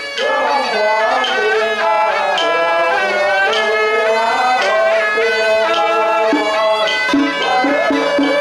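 Taiwanese temple ritual music: a suona (Chinese double-reed horn) playing a loud melody with sliding, wavering notes, with regular percussion strokes coming back in near the end.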